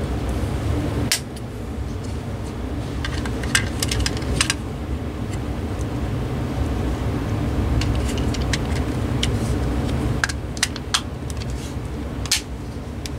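Sharp plastic clicks and taps from the housing halves of an AT&T CL83213 cordless phone handset being handled and fitted together, a few at a time, over a steady low rumble.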